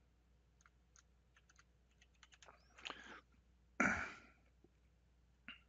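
Computer keyboard keys tapped in a few scattered strokes, then a louder thump about four seconds in and a single sharp click near the end.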